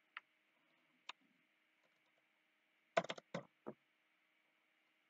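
Computer keyboard and mouse clicking: two single clicks in the first second or so, then a quick run of key presses about three seconds in as a number is typed on the number pad.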